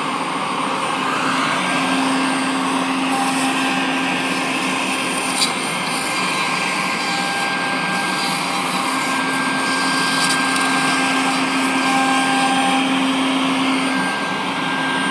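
CNC router spindle cutting wood, a steady whine over a rushing noise, with a short sharp tick about five seconds in.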